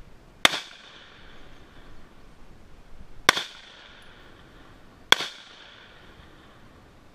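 Three rifle shots, the second about three seconds after the first and the third about two seconds later, each a sharp crack with a short echo trailing off.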